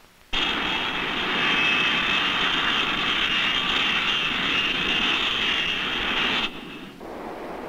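Jet engines of the Boeing 707 prototype running: a high, steady whine over a loud rushing noise. It cuts in suddenly and drops abruptly to a softer rush about six and a half seconds in.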